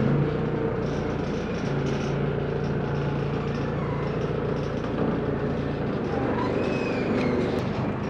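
Manitou telehandler's diesel engine running steadily as its boom moves a man basket.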